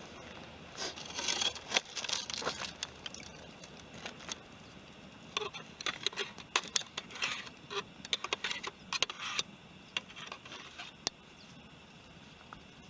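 Bursts of light clinking and scraping from small objects being handled, in two clusters about a second in and again from about five seconds in.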